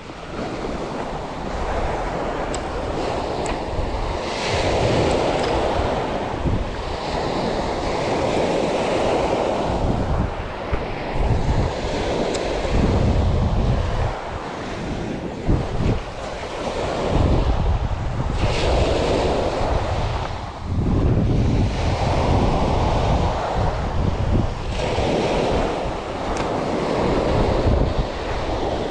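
Sea surf breaking and washing up a gravelly beach, swelling and fading every few seconds, with wind buffeting the microphone as a low rumble.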